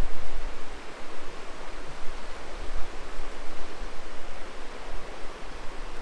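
Rushing river water, a steady even hiss with no breaks.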